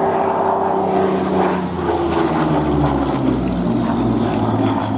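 A Second World War fighter's Rolls-Royce Merlin V12 engine runs as the aircraft flies past. About two seconds in, the engine note falls in pitch as it passes.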